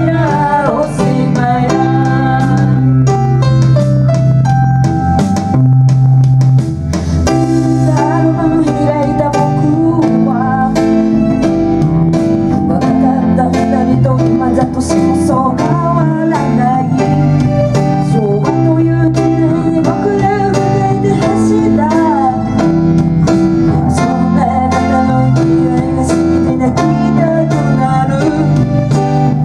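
Live band music: Roland Juno-G synthesizer keyboards and an electric bass playing a song with a steady beat, with a woman singing along.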